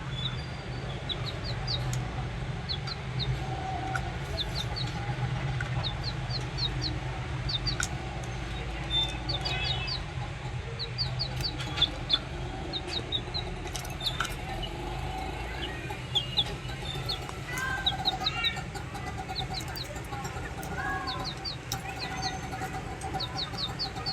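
Caged budgerigars chirping and chattering: short high chirps in quick runs of three or four, with lower calls mixed in, over a steady low hum.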